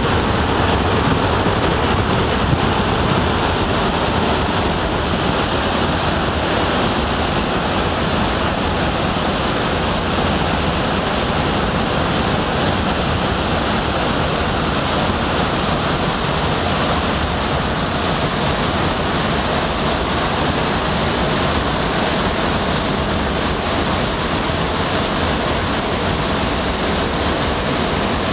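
Rapids and waterfall rushing: the Gardner River's whitewater pouring over boulders and down Osprey Falls, a loud, steady, unbroken rush of water.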